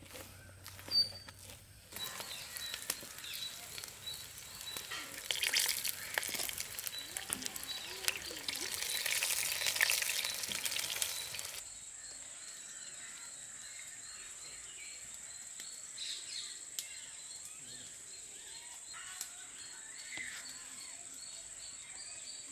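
Batter for thaen mittai frying in hot oil: a dense sizzle that swells and eases, after a single click about a second in. About halfway through the sizzle cuts off abruptly, leaving a quieter outdoor background with a steady high insect-like whine and faint bird chirps.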